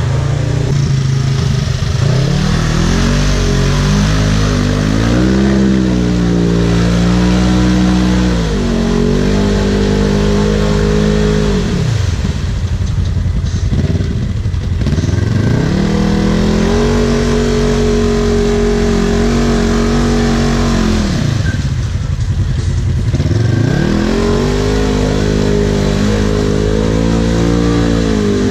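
Off-road ATV or side-by-side engine revving up and holding high revs, falling back toward idle twice and then revving up again each time.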